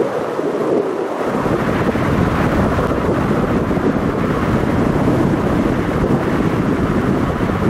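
Wind buffeting the microphone as a loud, steady rushing noise, with a heavy low rumble setting in about a second in.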